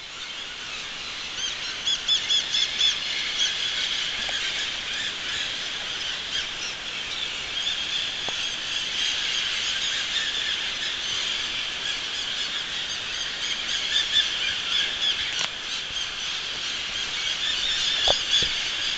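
A dense chorus of many birds chirping and calling at once, keeping up a continuous chatter of short high calls, with a couple of soft knocks near the end.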